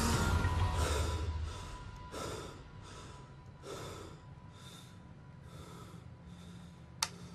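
A person breathing hard in quick gasps after waking with a start, about one breath every two-thirds of a second, slowly growing softer. A low rumble fades out in the first second and a half, and a single sharp click comes near the end.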